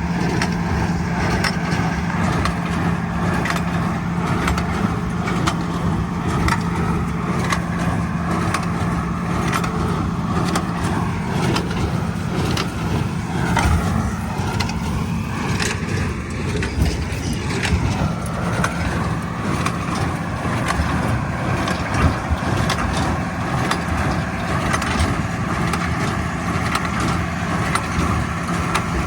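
A farm tractor's engine runs steadily, with the irregular clatter and knocking of a hay baler working behind it.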